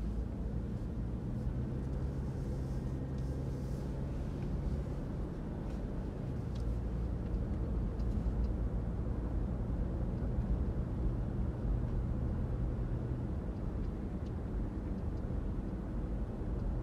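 Car driving: steady low engine hum and road rumble, with the engine note dropping away about three-quarters of the way through.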